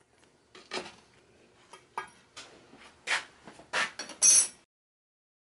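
Steel burner parts, a perforated sheet-steel diffuser plate and a square-tube manifold body, clinking and clanking as they are handled and set down on a workbench. There are about five separate knocks, the loudest near the end, and the sound cuts off suddenly after about four and a half seconds.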